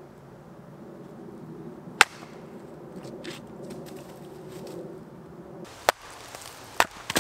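Hatchet chopping into a short log set on a tree stump: one sharp chop about two seconds in, another near six seconds, then two lighter knocks just before the end.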